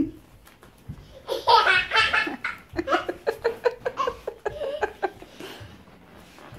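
A small child laughing: a long peal about a second in, then a string of short rhythmic giggles that fade near the end.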